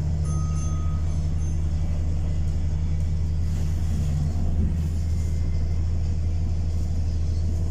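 Bus diesel engine running steadily, heard from inside the passenger saloon as a low drone, its upper tone dropping away about four and a half seconds in.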